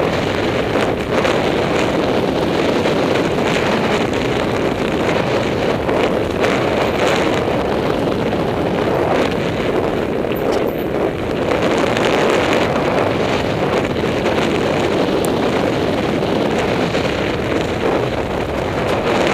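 Wind rushing over the microphone of a camera carried on a downhill mountain bike at speed: a steady, loud roar with no break.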